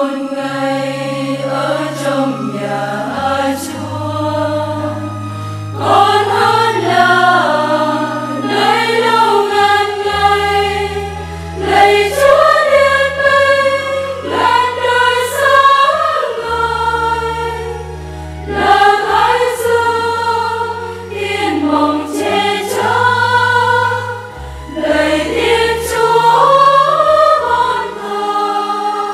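Choir singing a Vietnamese Catholic hymn over an instrumental accompaniment whose deep bass notes are held and change every second or two.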